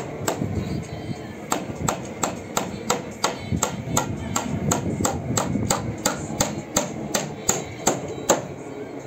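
Hammer driving nails into timber roof framing: a steady run of sharp blows, about three a second, stopping a little before the end.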